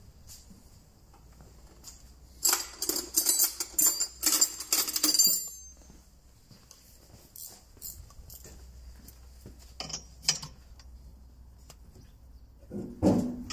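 Steel hand tools clinking and jangling against each other for about three seconds, as spanners are picked up from a pile of tools. A few lighter metal clicks follow, then a short low knock near the end.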